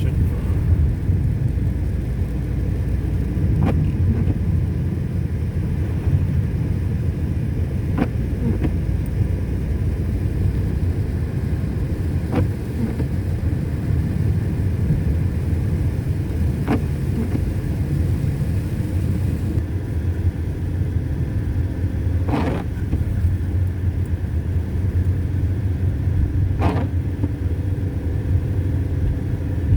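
Steady low rumble of a car driving on a slushy, snowy road, with a faint click about every four seconds.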